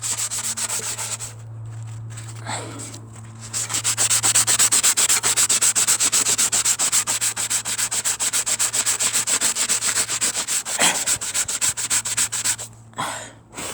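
Sandpaper rubbed by hand on a small engine part, most likely the Briggs & Stratton mower's bent exhaust valve, in rapid back-and-forth strokes. The strokes start loosely, speed up into a fast, even rhythm a few seconds in, and stop near the end.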